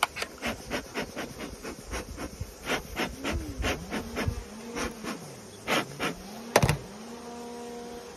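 Honeybees buzzing close by. Single bees fly past with a hum that rises and falls in pitch, and one hovers with a steady hum near the end. A quick series of sharp clicks and knocks runs through it, loudest about two-thirds of the way in.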